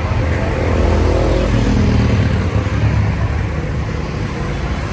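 Busy street traffic with a steady low rumble of engines and tyres. One motor vehicle passes close during the first half, its engine note dropping as it goes by.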